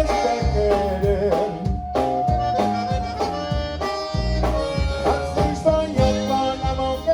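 Conjunto band playing an instrumental passage led by accordion, over a steady beat of bass and drums.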